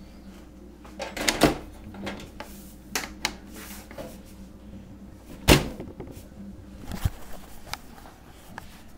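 Scattered knocks and clunks of a desktop computer tower's case being handled on a wooden table, a few seconds apart, the loudest about five and a half seconds in.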